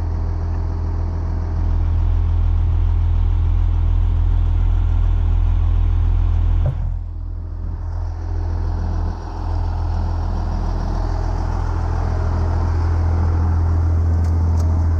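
Heavy diesel engine running steadily at a low, even drone, with a brief dip and a click about seven seconds in.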